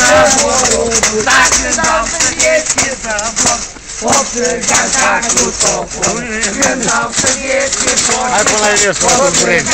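Mummers' tambourines and rattles shaken in a constant rapid jangle, with several people's voices chanting and calling over them.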